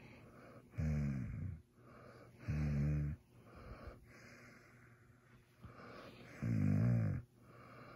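German Shepherd puppy groaning with contentment while being petted: three low, drawn-out groans, with soft breathing between them.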